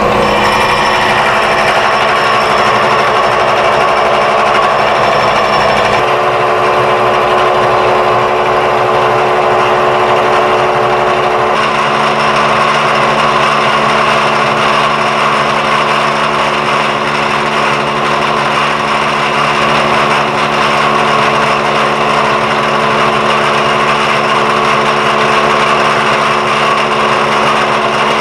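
Vertical milling machine cutting along the welded corner of a metal part to chamfer it: a loud, steady cutting noise with ringing tones from the cutter. The tones shift about six seconds in and again about twelve seconds in.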